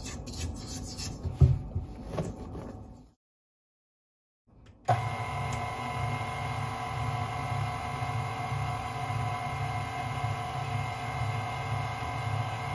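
A spatula scraping flour and dough off the sides of a stainless steel mixing bowl, in light scrapes and clicks. After a short silence, a KitchenAid tilt-head stand mixer comes on abruptly about five seconds in and runs steadily, its motor humming with a low pulsing as the dough hook turns through the flour and dough.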